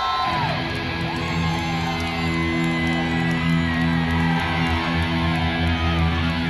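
Amplified electric guitar ringing out a held low chord that starts about a third of a second in and sustains steadily, with crowd whoops and whistles over it.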